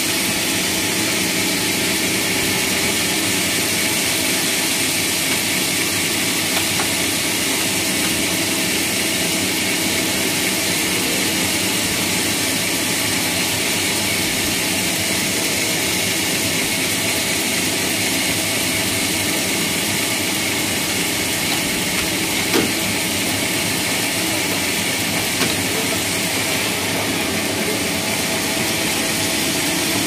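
Log band sawmill running steadily, its motor and saw making an even mechanical drone, with one short sharp knock about two-thirds of the way through.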